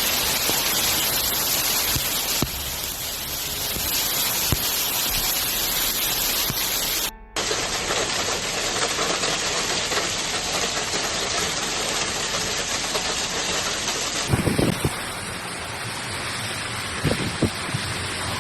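Steady hiss of heavy rain, from several storm clips joined end to end, with a brief dropout about seven seconds in and a change in tone about fourteen seconds in. A few low thumps follow the second change.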